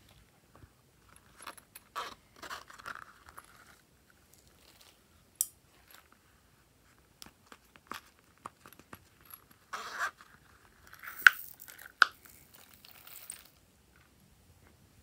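Small silicone pop-it coin purses being handled, opened and emptied, with scattered clicks, scrapes and rustles as small rubber bands and glitter drop into a glass dish. Two sharp clicks in the last third are the loudest.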